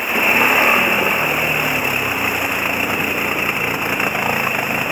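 Quad bike (ATV) engine running under throttle as it drives into a fast, swollen river, over a loud rush and splash of water. The sound jumps up sharply at the start.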